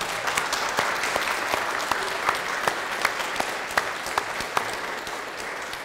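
Audience applauding, with a few sharp single claps standing out from the mass; the applause slowly dies down near the end.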